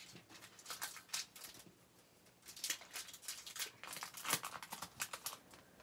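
Foil wrapper of a Topps Opening Day baseball card pack crinkling and tearing as it is pulled open by hand, in a few spells of crackling with a short pause about two seconds in.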